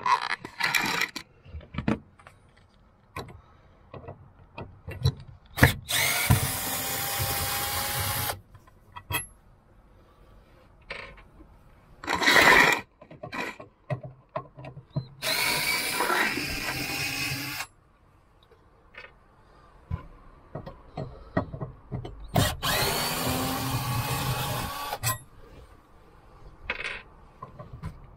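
Cordless drill-driver backing out the screws that fix a rock-and-roll bed frame to the van floor. It runs three times for about two seconds each, plus one short burst, and the motor whine rises as each run starts. Clicks and knocks from handling the drill and frame come between the runs.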